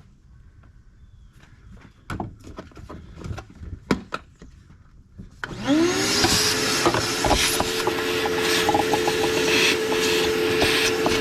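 A few knocks and clicks of handling, then about halfway through a vacuum cleaner switches on: its motor whine rises and settles into a steady hum over a loud rush of air as it cleans debris out of the air filter's pre-filter.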